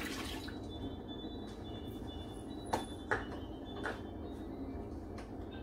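Steady low kitchen background hum with about three light clicks or knocks in the middle, from things being handled on the counter.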